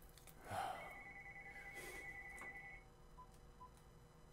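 A brief soft rustle about half a second in, then a faint, high, warbling electronic ringing tone that holds steady for about two seconds and stops.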